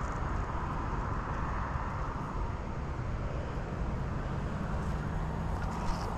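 Steady road traffic noise, with a vehicle engine's low hum coming in about halfway through.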